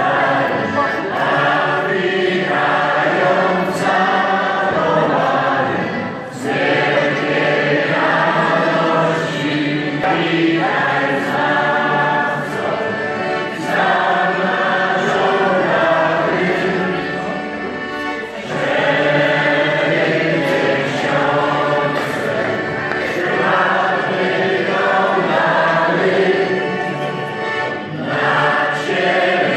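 A group of voices singing a Christmas carol together, in phrases of a few seconds with brief dips between them.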